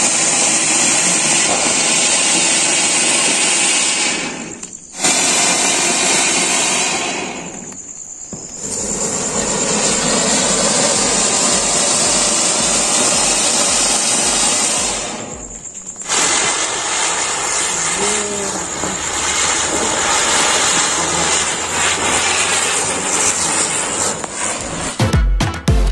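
Fountain fireworks spraying sparks with a loud, steady, rushing hiss that drops away briefly three times and then starts up again.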